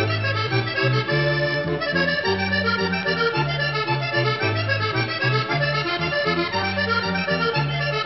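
Accordion instrumental music with a bass line that moves from note to note every half second or so.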